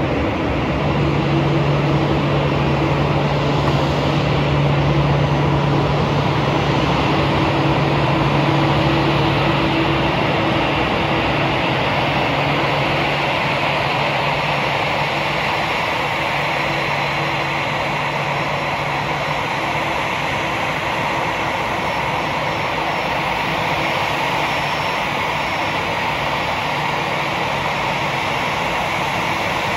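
Twin jet engines of an Airbus A319 running at taxi idle as it rolls in toward the gate: a steady rush with a high whine. A low hum is strongest at first and fades about halfway through.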